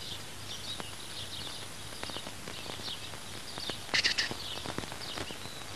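Small birds chirping in short, repeated high calls over a steady outdoor background, with a few faint clicks and a louder chirp about four seconds in.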